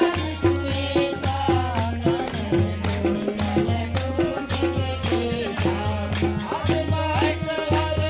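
Music: a sung melody over a steady beat of about two beats a second, with rattle-like percussion.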